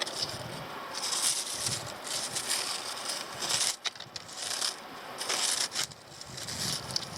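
Dried grass stalks rustling in short crackly bursts, about one a second, as they are waved and swished about as a cat toy.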